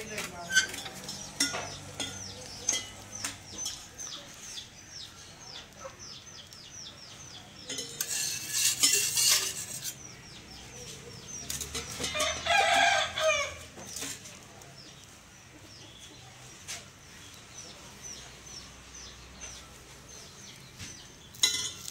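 A rooster crows about twelve seconds in, with faint bird chirps in the background. About eight seconds in, a metal spatula scrapes over a wet iron dosa tawa with a hiss lasting about two seconds.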